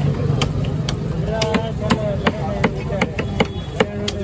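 Cleaver chopping a trevally fillet into chunks on a wooden log chopping block: a run of about ten sharp chops, roughly two or three a second, unevenly spaced.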